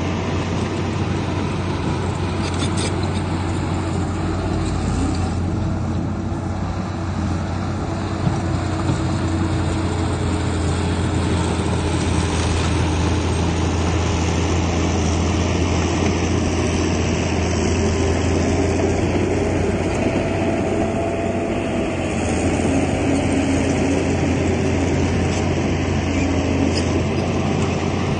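Heavy diesel earthmoving machinery running steadily, a deep continuous drone with no breaks or sudden impacts.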